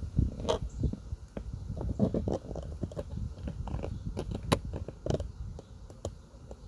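Small screwdriver tip scraping and clicking against the plastic tab of a car's center-console flood-light housing, prying to release it. Irregular small clicks and scrapes, the sharpest about four and a half seconds in.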